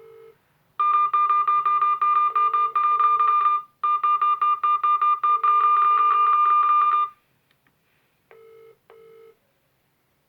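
Mobile phone ringing with an electronic ringtone, a fast pulsing melody in two bursts of about three seconds each that stop about seven seconds in. Faint short beeps, like call-progress beeps from the other phone, sound at the start and twice near the end.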